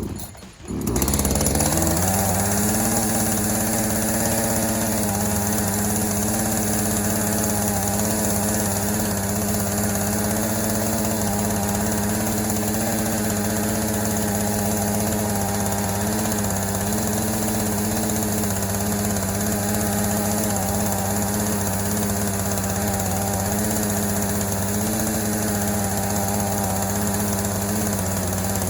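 Gasoline chainsaw engine catching about a second in, then running at a steady speed.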